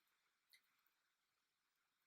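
Near silence: a gap in the recording with only faint hiss.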